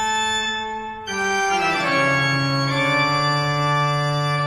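Music: sustained electronic organ chords, with a brief dip about a second in, then a new chord that moves lower and is held.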